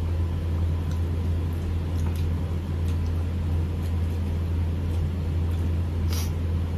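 Steady low mechanical hum with a few faint clicks, the sharpest about six seconds in.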